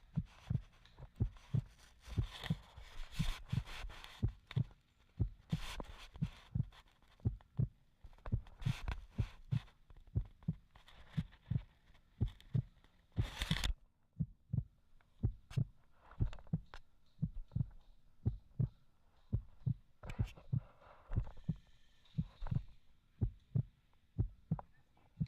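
Low, dull thumps repeating about twice a second, at a walking pace, with stretches of rustling hiss between them and one louder rustle a little past the middle.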